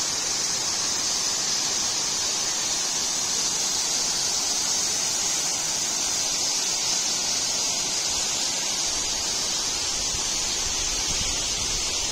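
Steady rushing of a waterfall: several thin cascades of water pouring down a rock face and splashing over rocks.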